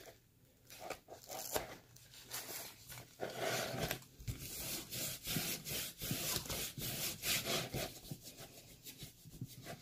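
Hands rubbing and scraping at diamond painting kit packaging, a run of short, irregular rubbing strokes.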